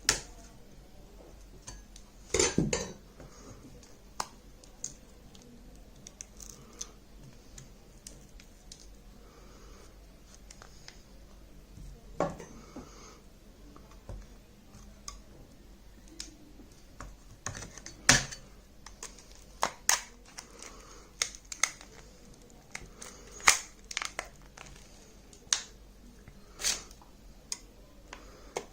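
Scattered sharp clicks, snaps and scrapes of a 2015 Lenovo tablet's plastic and metal parts being pried apart and handled during a teardown, with a few louder snaps among them.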